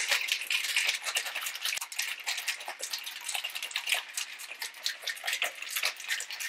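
About five ice cubes rattling inside a cocktail shaker shaken hard with a margarita's liquid, a fast, continuous clatter of ice against the shaker walls that eases off slightly toward the end.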